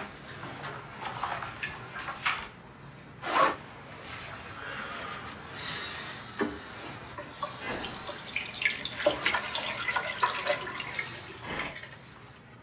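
Water running and splashing, with irregular splashes and small clicks.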